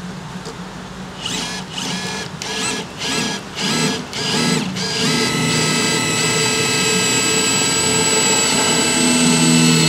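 Two Dekton D21 brushless cordless impact drivers (280 N·m and 300 N·m) driving screws into a thick steel bar. Short trigger bursts of motor whine start about a second in, then they run steadily from about five seconds on, getting louder toward the end.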